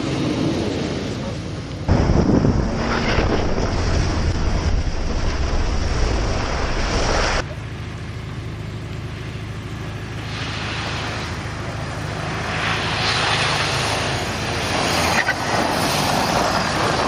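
Small hatchback car sliding on packed snow, its engine revving and its tyres churning the snow, mixed with wind buffeting the microphone. A louder, low wind rumble runs from about two seconds in to about seven seconds in and cuts off suddenly.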